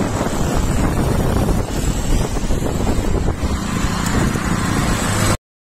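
Wind buffeting a phone's microphone in a loud, gusting rumble, mixed with traffic on the bridge roadway. It cuts off suddenly near the end.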